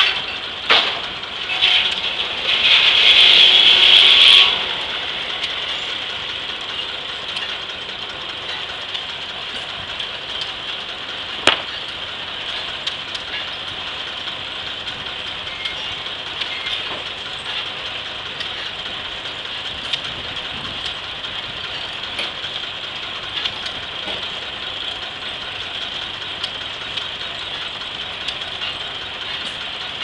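Steam-engine-powered 1880s Gaar Scott circular sawmill. It is loud with a high whine for the first four seconds or so, then the blade runs on at a lower level with a steady high hum and a rattling mill. A single sharp knock comes about eleven seconds in.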